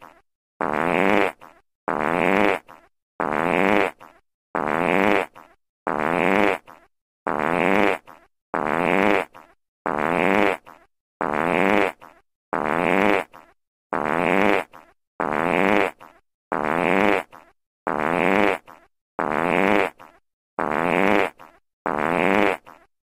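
A recorded fart sound effect: the same short blat, each under a second long and fading out, repeated over and over about every 1.3 seconds, until it stops near the end.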